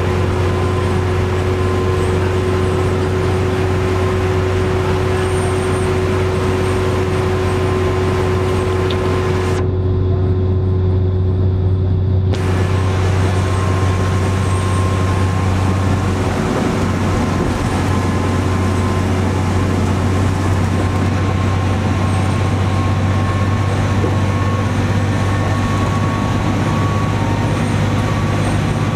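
A 1998 New Flyer D40LF transit bus under way, heard from inside, with its Cummins ISC diesel and Allison automatic transmission giving a steady low drone and faint whining tones. The pitch shifts slightly about halfway through.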